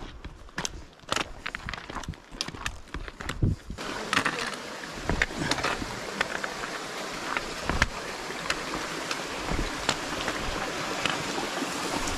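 Hiking boots and trekking poles tapping and crunching on a stony mountain trail. About four seconds in, the steady rush of a rocky mountain stream comes in under the continuing footsteps.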